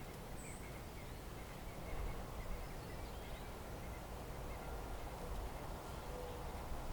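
Outdoor winter ambience: a steady low background rush with faint, scattered bird chirps, and a few short low calls near the end.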